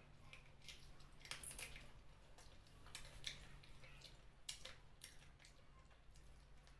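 Faint wet eating sounds: scattered clicks, squelches and smacks of chewing and sucking on chicken feet in curry.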